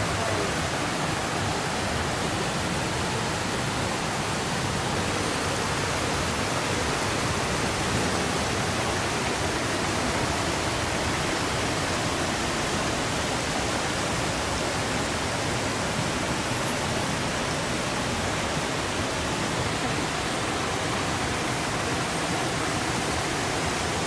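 Shallow rainforest stream rushing over boulders in small cascades: a steady, even rush of water that does not change.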